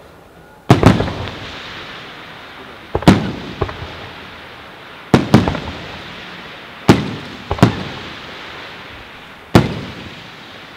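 Fireworks display: aerial shells bursting with sharp bangs roughly every two seconds, often in quick pairs, each followed by a fading crackle.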